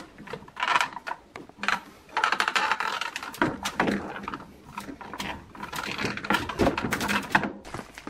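White wire freezer basket rattling and clicking against the plastic slide rails of a bottom-freezer drawer as it is set back in place.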